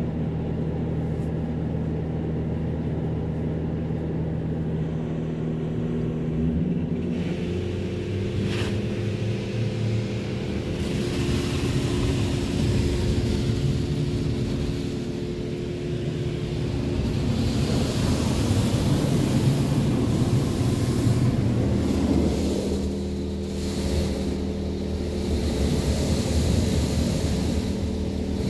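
A touch-free automatic car wash heard from inside the car's cabin. The pumps and gantry motors hum steadily, starting suddenly at the outset. From about seven seconds in, high-pressure water jets hiss and drum across the glass and body, and a single sharp click comes soon after.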